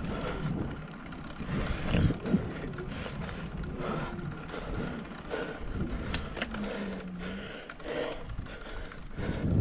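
Road bicycle rolling over rough, cracked asphalt: tyre noise with irregular rattles and knocks from the bike.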